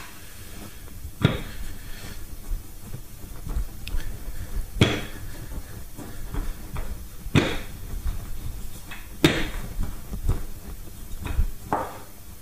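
Wooden rolling pin rolling pastry dough back and forth on a wooden worktop: a low rumble of rolling with a sharp knock every couple of seconds, four of them louder than the rest.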